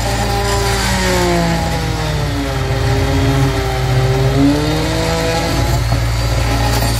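Handheld electric power tool running with its blade cutting along a fiberglass seam over an old wooden stringer in a boat hull. Its motor pitch sags and recovers as the blade bites, dipping lowest about three to four seconds in.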